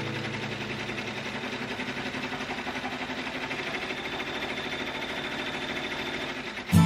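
Multi-needle embroidery machine stitching, a steady rapid chatter of the needle bar going up and down as it sews lettering.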